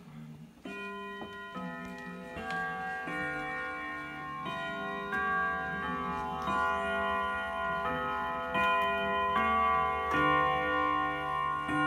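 Howard Miller grandfather clock chiming at seven o'clock: a run of ringing chime notes, one after another, each hanging on under the next.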